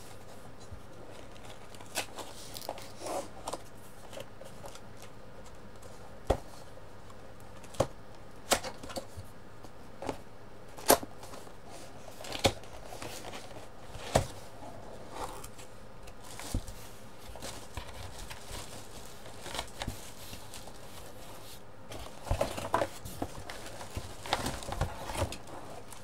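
A cardboard box being handled and worked open: sharp clicks and taps a second or two apart, then a busier run of cardboard rustling and scraping near the end as the lid comes open.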